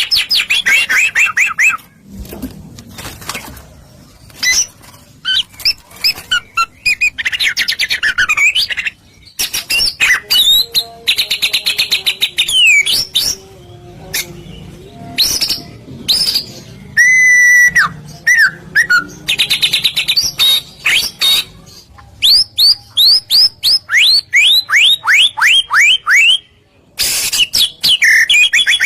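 White-rumped shama (murai batu) singing a loud, varied song: rapid trills, clear whistles and runs of quick descending sweeps, in phrases with short pauses between them.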